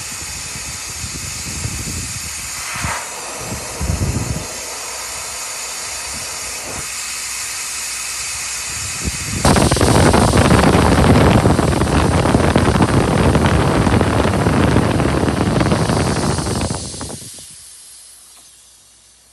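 Compressed air escaping from a semi truck's air system: a steady hiss with a few knocks, then a much louder rush of air starting about halfway through that lasts several seconds and dies away near the end.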